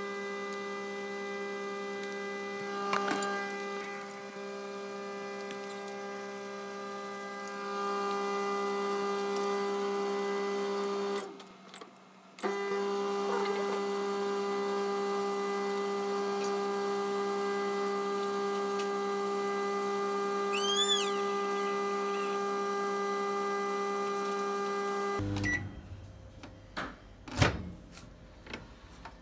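Microwave oven running while heating a mug of milk: a steady electrical hum that breaks off briefly about eleven seconds in, then cuts off suddenly near the end, followed by a few clicks and knocks.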